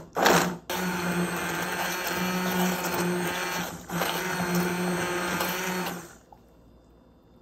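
Stainless-steel immersion blender running as it purées thick cooked barbecue sauce smooth. It cuts out briefly twice near the start, dips once midway, and is switched off about six seconds in.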